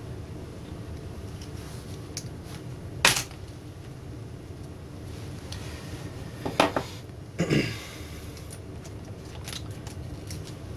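Small clicks and knocks of hand tools and a cable connector being handled on a monitor's metal chassis: one sharp click about three seconds in, then a few short clattering knocks a little past the middle, over a steady low hum.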